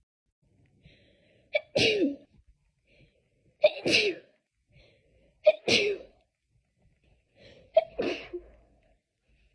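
A person's sneezing fit: four sneezes in a row, about two seconds apart.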